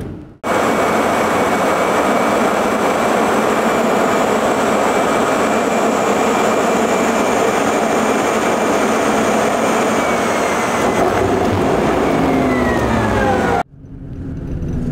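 Loud, steady rushing noise of a vehicle in motion with a thin, steady whine over it. Near the end several tones glide downward, and the sound cuts off abruptly.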